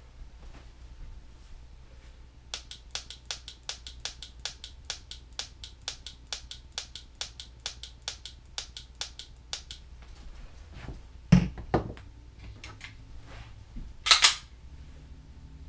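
SIRT training pistol's trigger clicking rapidly as it is dry-fired over and over, about four sharp clicks a second for some seven seconds. Near the end come a louder knock and then a short, louder clatter.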